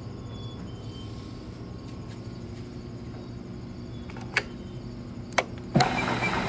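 Esmach baguette moulder running with a steady low mechanical hum, with two sharp clicks about four and five seconds in; near the end a louder, fuller sound comes in.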